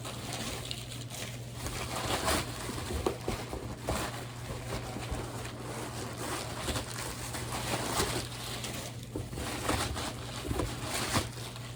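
Packing material in a cardboard shipping box being rustled, crinkled and pulled out by hand, in irregular bursts, over a steady low hum.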